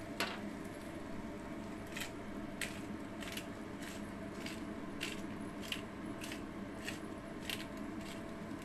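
Handheld spice grinder being twisted over a pan, a short crunching grind about every half second to second, over a steady low background hum.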